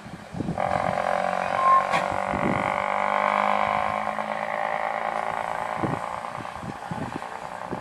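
Steam locomotive hissing steam steadily as it moves slowly along the track, with a few low knocks.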